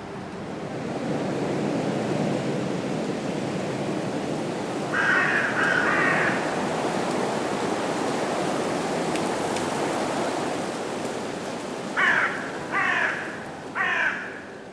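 Crow cawing over a steady rush of wind in the trees: two harsh caws about five seconds in, then three more, a second apart, near the end.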